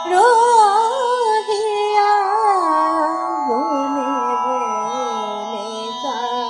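Indian devotional-style music: an ornamented melody with sliding pitch glides over a steady sustained drone.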